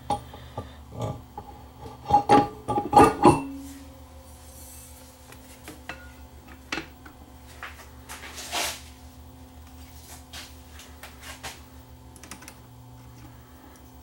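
Handling knocks and clicks as a rubber mat and a record are set onto a turntable platter: a quick cluster of clattering knocks about two seconds in, then a short swish and scattered light clicks.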